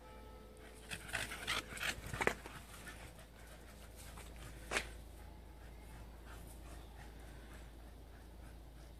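A dog panting, a run of quick breaths about a second in, followed by a single short sharp sound near the middle; after that only faint background.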